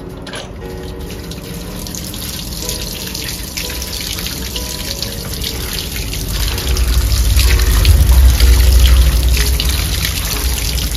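Water running from a wall tap and splashing onto apples in a plastic basket as they are rinsed by hand. The splashing grows louder about halfway through.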